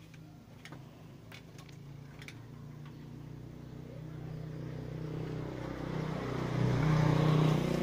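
A motor vehicle engine approaching and passing, growing steadily louder to a peak near the end, then beginning to fade.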